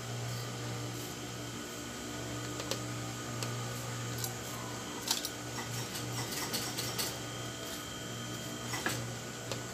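Steady electric hum of an industrial sewing machine's motor, with scattered light clicks and taps as the fabric and piping are handled at the needle.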